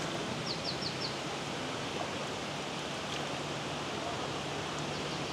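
Steady rush of running water, with a bird giving four quick high chirps about half a second in.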